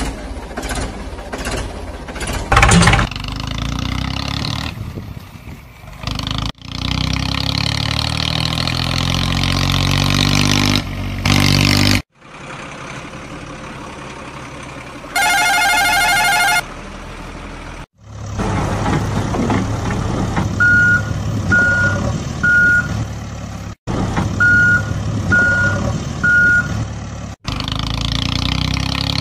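Edited-together heavy-vehicle sound effects: a truck engine running and revving up, a short warbling electronic tone about halfway through, then reversing beeps in two sets of three near the end.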